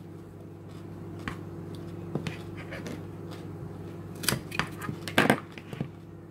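A knife and a handheld spiralizer working a carrot: scattered crunches and clicks as the stuck carrot end is cut free, the loudest a little after five seconds in. A steady low hum runs underneath.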